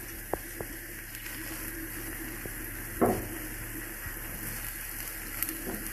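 Kuzhi paniyaram frying in oil in a paniyaram pan, a steady faint sizzle, while a wooden stick turns them over in the wells: a few light clicks, then one louder knock about three seconds in.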